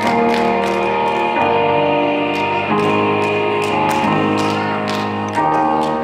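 Music accompanying the act: sustained instrumental chords that change about every second and a quarter, over a light ticking beat.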